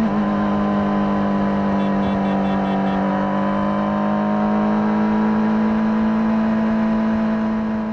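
Honda CBR600RR inline-four engine on its stock exhaust, running at a steady, fairly low rpm under way, its pitch rising very slightly midway, then fading out at the end.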